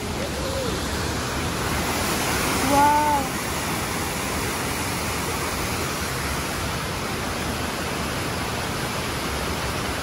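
Waterfall and cascading stream rushing steadily, an even wash of falling water with no break.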